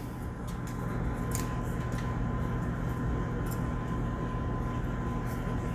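Steady low hum of a running fan, with a few faint light ticks as fresh rosemary is sprinkled onto potato wedges on a foil-lined baking tray.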